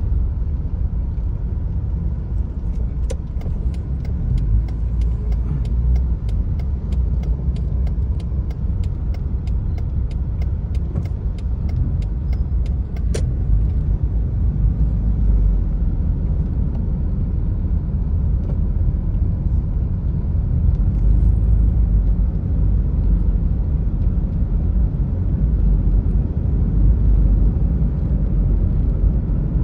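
Low, steady rumble of engine and road noise heard inside a moving car's cabin in slow, heavy traffic. From about three seconds in until about thirteen, a fast regular ticking, two or three ticks a second, ends with a sharper click.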